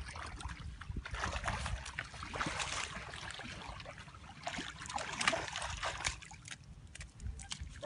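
Bare feet splashing and sloshing through shallow muddy water and soft mud, in irregular bursts.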